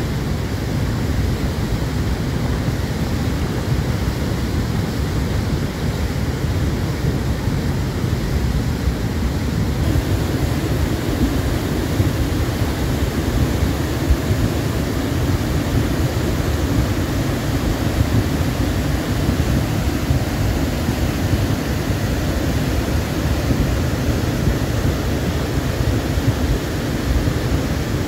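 Alpine river in flood, a fast, muddy torrent carrying heavy sediment, rushing steadily with a deep low rumble under the hiss of the water.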